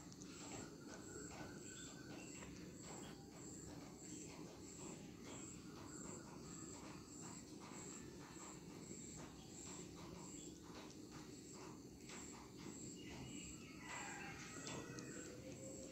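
A calico cat chewing dry food, with soft scattered crunching clicks, against faint ambience that holds a high, even pulse about twice a second.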